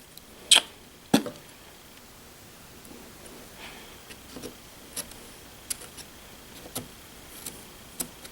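Sharp clicks and light taps of small parts being handled: two louder clicks about half a second and a second in, then a few fainter scattered ticks.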